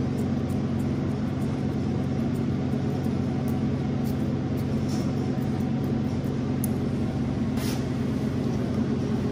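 Steady low machine hum from a running motor or fan, with a couple of faint clicks.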